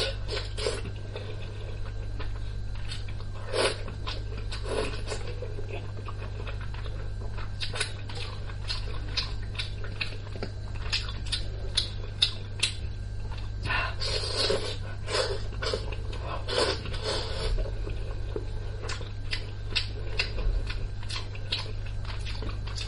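Close-miked eating sounds: wet chewing and lip smacks on soft braised pork belly, many small irregular clicks, over a steady low hum.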